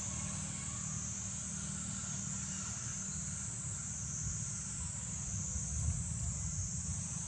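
Steady high-pitched insect chorus, swelling and fading slightly in slow waves, over a low rumble.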